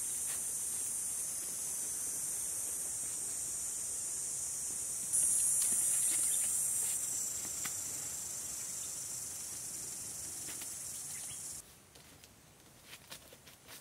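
A steady, high-pitched insect drone that cuts off abruptly near the end. It leaves only faint clicks and taps of thin wooden sticks being handled.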